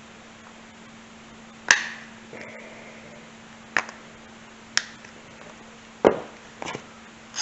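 Several sharp metallic clicks and taps at irregular intervals, from long needle-nose pliers and a wrist-pin C-clip against a two-stroke piston as the clip is worked into its groove. A faint steady hum lies underneath.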